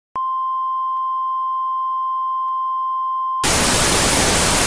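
A steady, single-pitched electronic beep like a broadcast test tone, held for about three seconds, then cut off by loud television static hiss.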